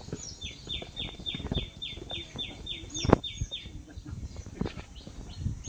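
A bird calling in a rapid run of short, high, descending notes, about three a second, that stops about three and a half seconds in. Under it are footsteps on stone steps, with a sharp click about three seconds in.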